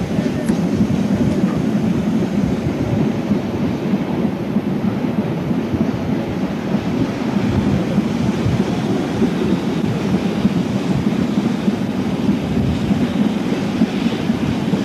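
A train running along the track, heard from on board: a loud, steady rumble.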